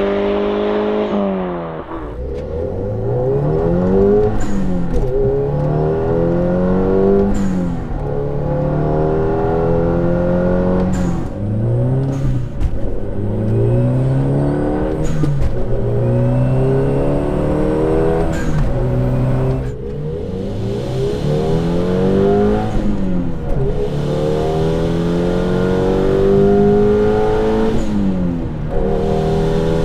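A VW MK5 GTI's 2.0-litre turbocharged four-cylinder accelerating hard through the gears: its exhaust note rises, then drops sharply at each upshift, every two to three seconds, with a few sharp pops or clicks between.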